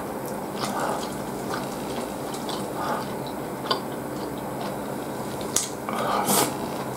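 Wet chewing and mouth sounds of someone eating ramen noodles: scattered small clicks and smacks, with a louder slurp of noodles about six seconds in.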